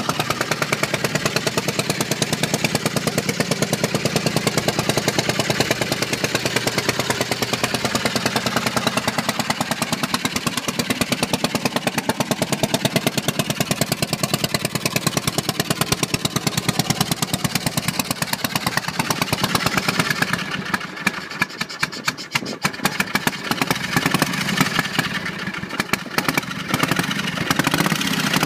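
1996 Harley-Davidson Fat Boy's 1340 cc Evolution V-twin idling steadily, an even run of firing pulses. It is quieter for a few seconds about two-thirds of the way through, then returns to full level.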